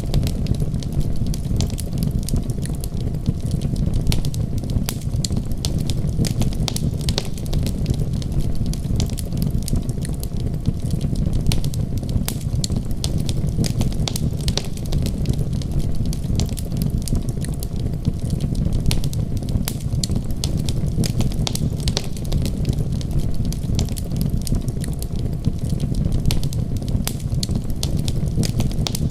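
Wood fire crackling, with frequent sharp, irregular pops over a steady low rumble.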